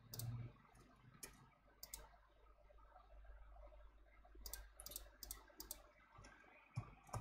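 Faint, sharp clicks of a computer mouse: a few single clicks, then a quick run of about six clicks between four and six seconds in, and one more near the end.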